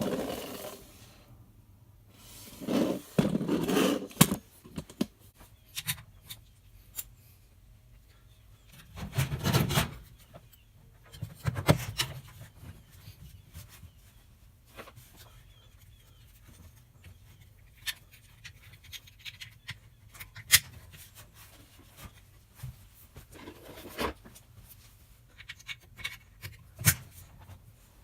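Hand work on washing machine parts: scattered clicks and knocks of tools and parts, with a few longer rubbing, scraping stretches, the loudest near the start, around three to four seconds in, and around nine to ten seconds in.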